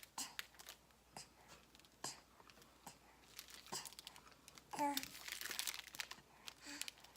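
Plastic snack wrapper crinkling and tearing in scattered crackles as a packaged crepe is handled and opened. A brief voice sounds about five seconds in.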